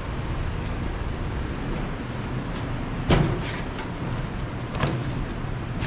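Steady background machinery hum, with a sharp knock about three seconds in and a lighter one near five seconds, as tools are handled in a search for Allen wrenches.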